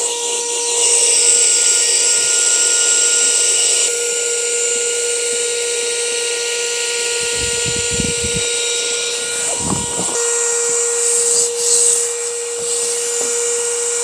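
Small portable electric air pump running at a sleeping mat's valve, pumping air into the mat. It gives a steady high whine with a hiss of rushing air. A few dull thumps come in the middle as the mat is handled.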